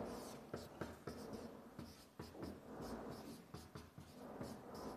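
Chalk writing on a blackboard: faint, irregular taps and scratchy strokes as characters are written.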